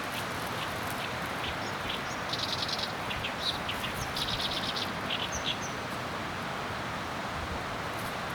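A bird calling outdoors: scattered high chirps and two quick trills of rapidly repeated notes, over a steady rushing background noise.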